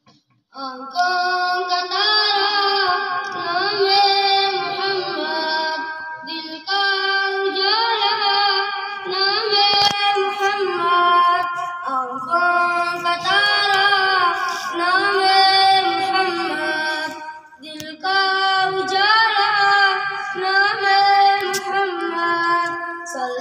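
A boy singing a naat solo and unaccompanied into a microphone, in long melodic phrases with short pauses between them.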